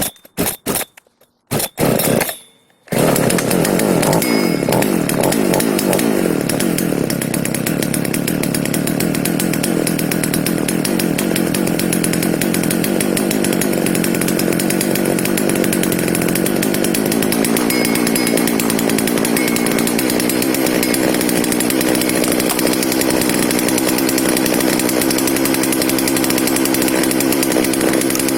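Efco 136 two-stroke chainsaw being started on choke after a carburettor repair: a few seconds of short, sputtering strokes, then it catches about three seconds in. It runs on steadily at idle, its pitch falling over the first few seconds and then holding; the idle is a little high and the carburettor still needs adjusting.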